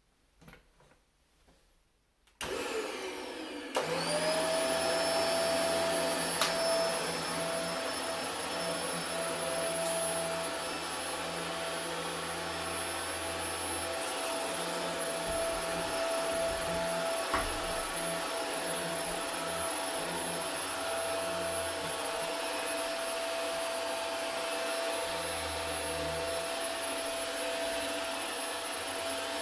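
Vacuum cleaner switched on about two seconds in, its motor spinning up within a second or so to a steady high whine. It then runs on steadily, the deeper part of its sound shifting now and then as it is moved about.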